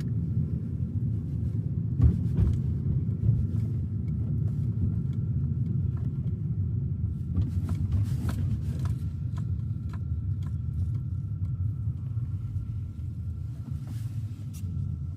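Car driving, heard from inside the cabin: a steady low rumble of road and engine noise, with a few sharp clicks about two seconds in and again a little past the middle.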